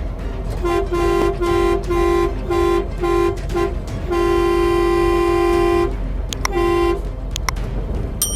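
Car horn honking: about six short beeps in quick succession, one long blast of about two seconds, then one more short beep, over a steady low rumble of road and engine noise.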